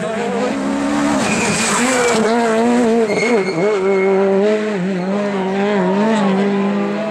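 Rally car engine pulled hard along a stage, its pitch rising and dropping with throttle and gear changes.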